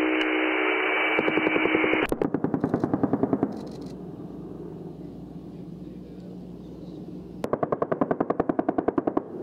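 AH-64 Apache's 30 mm M230 chain gun firing two bursts at about ten rounds a second. The first comes about two seconds in and lasts about a second and a half; the second comes near the end. Between the bursts there is a steady low drone.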